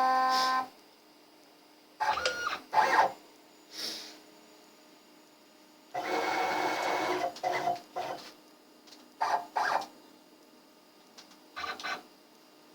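CNC router's stepper motors driving the axes in a string of short moves with pauses between, some with a brief whine and the longest about a second and a half, as the probe routine searches for a workpiece corner.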